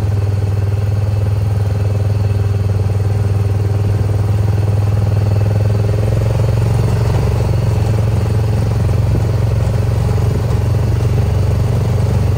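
A vehicle engine running at a steady speed, a loud even low hum with no change in pitch.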